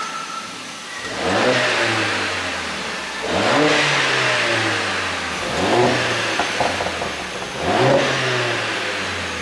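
Mercedes-AMG A45's turbocharged 2.0-litre four-cylinder engine blipped four times, about every two seconds, each rev rising sharply and falling back toward idle. A few short pops sound from the exhaust as the revs drop after the third blip, the overrun crackle that the ECU pop tune is meant to give.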